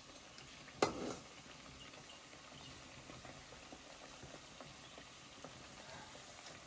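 Bhajia fritters deep-frying in a kadai of hot oil over a wood fire: a steady faint sizzle with small scattered crackles as a slotted ladle stirs them. The ladle knocks once sharply against the pan about a second in.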